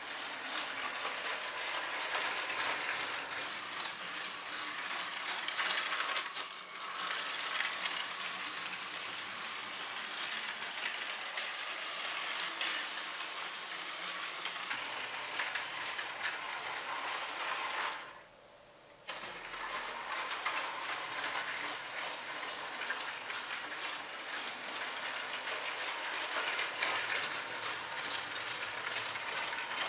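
Lego Power Functions train running on plastic track, its small electric motor and gears going steadily. About 18 seconds in the sound stops for about a second as the train halts, then resumes as it sets off again in reverse.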